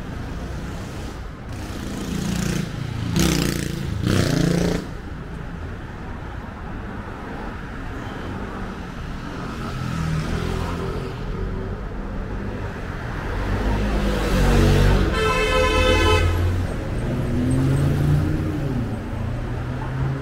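Busy city street traffic with cars passing close by. About three-quarters of the way through, a car horn sounds once for about a second and a half, and faint passers-by's voices come through the traffic.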